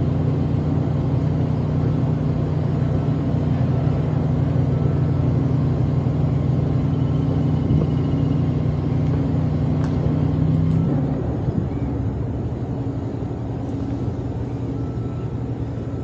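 An engine running steadily with a low hum, easing off and changing about eleven seconds in.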